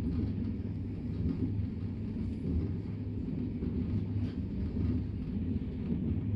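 Steady low rumble of a moving train, heard from inside the passenger carriage as it runs along the track.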